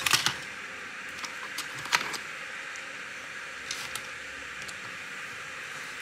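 A few sharp clicks and light rattles as a bit is picked out of a plastic precision screwdriver kit: a cluster at the start, one loud click about two seconds in, then a few fainter ticks.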